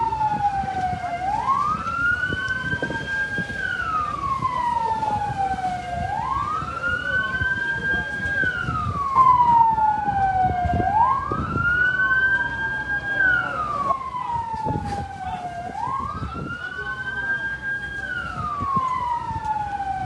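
Fire engine siren wailing in slow cycles, each a quick rise in pitch, a short hold at the top, then a long slow fall, about four times over the stretch.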